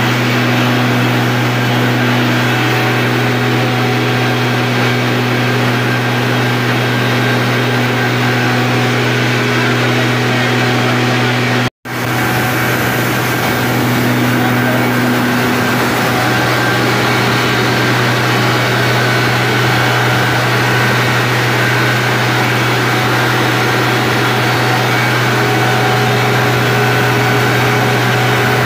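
Greaves Cotton 12-cylinder diesel engine of a 500 kVA generator set running loud and steady: a constant low hum under a dense, even mechanical rush. The sound cuts out for an instant about twelve seconds in, then carries on unchanged.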